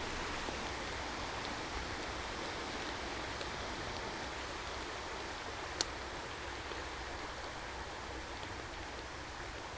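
Mountain stream flowing with a steady rush, and one sharp click about six seconds in.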